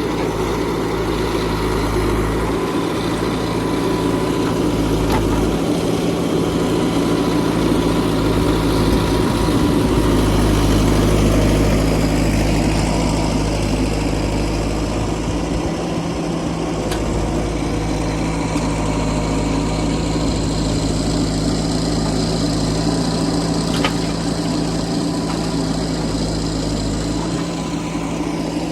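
Diesel engine of heavy earthmoving or farm machinery running steadily at a constant speed, with a low hum.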